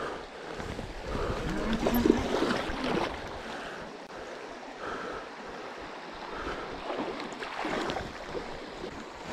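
River water rushing and splashing close to the microphone, heavier in the first few seconds, with wind noise on the microphone.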